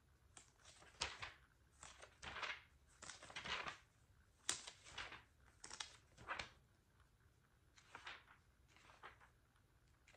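Pages of a thick textbook being turned one after another, a string of short papery rustles, weaker near the end.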